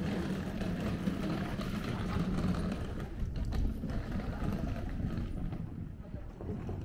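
Street noise with the low rumble of a motor vehicle close by, easing off about five seconds in.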